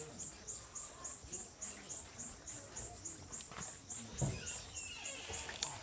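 An insect chirping steadily, a high pulse about four times a second, with a soft thump about four seconds in.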